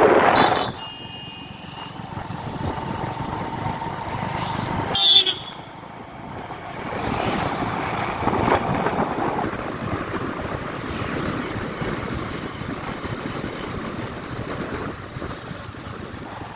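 Road traffic noise with wind on the microphone during a ride. A vehicle horn sounds for about a second near the start, and a louder, short horn blast comes about five seconds in.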